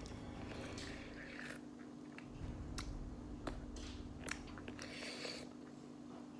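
Faint mouth sounds of a person biting and chewing a lemon slice: soft wet smacks and a few small clicks.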